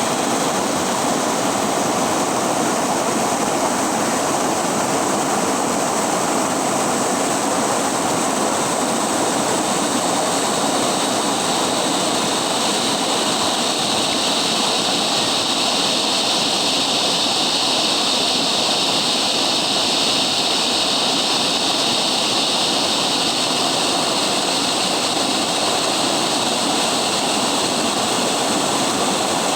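River water rushing steadily, a dense even hiss that turns somewhat brighter and higher for a stretch in the middle.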